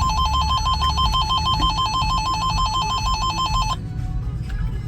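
Electronic emergency-alert warble tone from a radio, flipping rapidly between two pitches near 1 kHz, several times a second. It cuts off suddenly about three and a half seconds in, leaving a steady low vehicle-cabin rumble.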